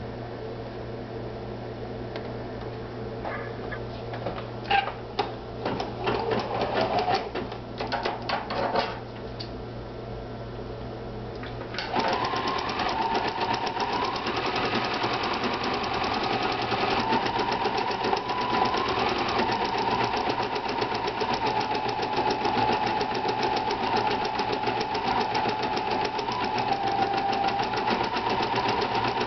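A few scattered clicks and knocks over a low hum, then about twelve seconds in a Pfaff 2170 sewing and embroidery machine starts stitching an embroidery design: a fast, steady stitching rattle over a motor whine that wavers slightly.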